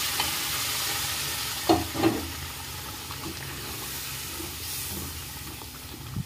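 Fried masala sizzling in a non-stick kadai just after hot water is poured in, stirred with a spatula; the sizzle slowly dies down as the water mixes in. Two sharp knocks of the spatula on the pan about two seconds in.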